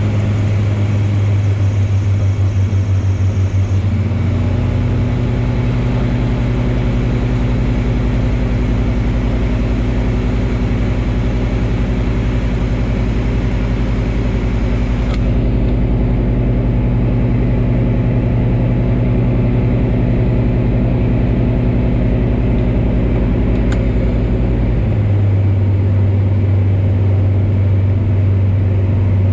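The engine and propeller of a Pipistrel Virus light aircraft drone steadily in flight, heard inside the cockpit. The engine is a Rotax 912-series flat-four. The note shifts slightly about four seconds in and shifts back near the 25-second mark.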